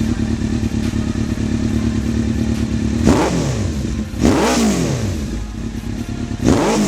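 2003 Kawasaki Z1000's inline-four running through Two Brothers M2 V.A.L.E slip-on mufflers, idling steadily with a deep, bassy tone. About three seconds in it is revved in three quick throttle blips, each rising and falling back to idle.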